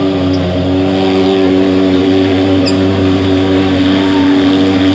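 Thermal mosquito-fogging machine running with a loud, steady drone.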